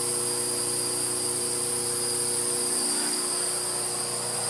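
A machine running steadily: an even hum with a constant high-pitched whine over it.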